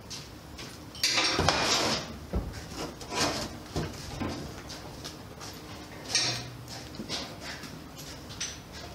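Clattering and knocking as thin sheet-metal downspout pipe and hand tools are handled, with a loud rattling scrape about a second in that lasts about a second, and another shorter one near six seconds.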